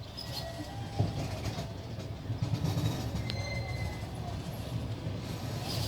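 Rumble and clatter of a passenger train's wheels on the track, heard from inside the moving carriage, with a sharp knock about a second in.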